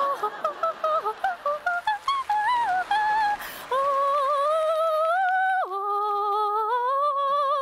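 A high woman's voice singing a wordless tune, like an operatic warble. It starts with quick short stepping notes, then moves to long held notes that glide slowly upward, drops suddenly about five and a half seconds in, and holds a steady note.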